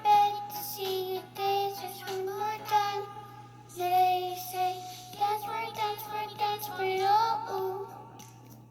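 A child singing a melody without clear words, with held and sliding notes, over music; it fades near the end.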